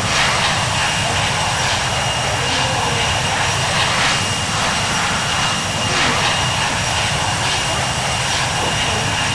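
Aircraft engine noise, loud and steady, with a thin high whine held throughout.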